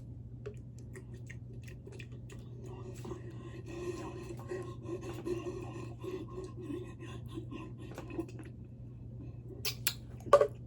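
A person chewing and eating food close to the microphone: small wet clicks and mouth noises scattered through, over a steady low hum, with two louder short sounds near the end.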